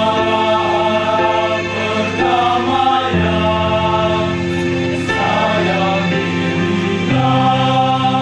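Male choir singing in harmony, holding long chords that change about three seconds in and again about seven seconds in.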